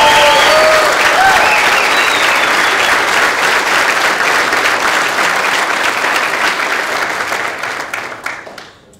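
Crowd applauding, with some cheering in the first second; the clapping dies away near the end.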